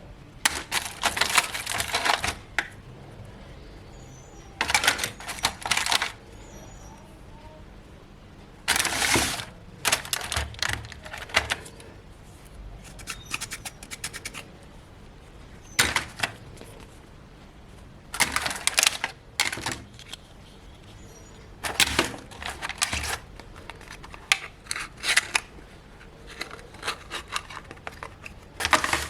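Small plastic toy pieces being handled and set down: irregular clusters of clicks, taps and rustles every few seconds.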